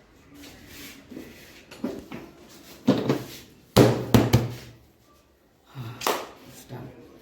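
A series of irregular knocks and clunks of parts and tools being handled, the loudest three coming close together about four seconds in.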